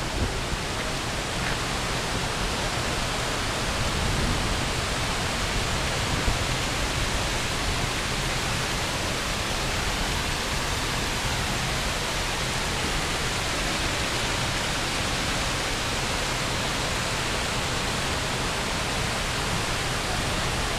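Steady rush of water pouring down a hydroelectric dam's concrete spillway, with wind buffeting the microphone.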